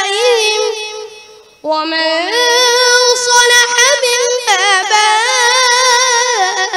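A boy chanting the Qur'an in melodic tajweed style through a microphone. A long ornamented note fades away over the first second and a half, then after a brief pause a new phrase begins suddenly and is drawn out in long wavering ornaments.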